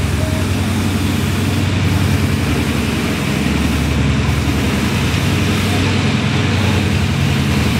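Diesel locomotive engine running steadily as the train pulls away from the station, a low, even drone of the engine with no breaks.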